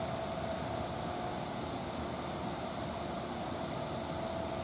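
Steady background drone with a constant mid-pitched hum and no distinct events.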